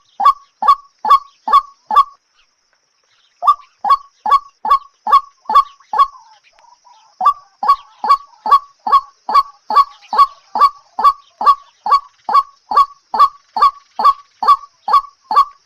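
A bird calling over and over in short, evenly spaced calls, about two to three a second. The calls break off for about a second and a half near the start, then resume at the same steady pace.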